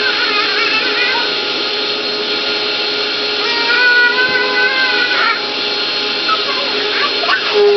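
Upright bagless vacuum cleaner running steadily with an even motor hum. About halfway through, a high wavering vocal sound rises over it for a second or two.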